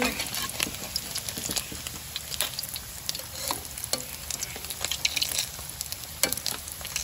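Dumplings shallow-frying in oil in a metal wok: a steady sizzle dotted with sharp pops and clicks, with a metal spatula stirring and scraping them against the pan.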